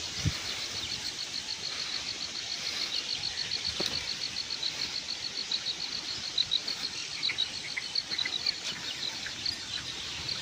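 Outdoor ambience: an even, high-pitched chirping, about six chirps a second, over a steady hiss, with a few short bird calls joining in the second half.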